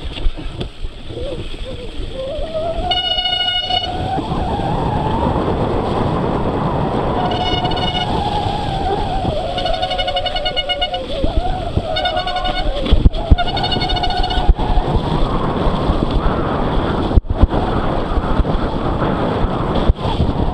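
Mountain bike disc brakes squealing under braking on a muddy descent, several times, each squeal lasting about a second with a wavering pitch, over heavy wind rush and rattling on the microphone.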